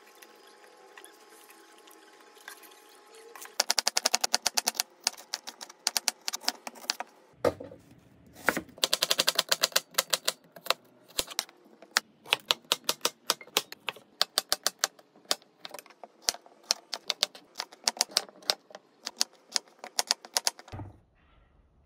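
Kitchen knife chopping on a wooden cutting board, slicing onion and cutting potato and zucchini into cubes. It is a fast run of sharp knocks, several a second, with brief pauses. It starts about three seconds in and stops just before the end.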